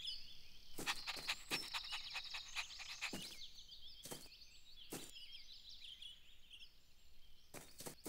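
Faint garden ambience of birds chirping in quick, sloping calls, with scattered light taps.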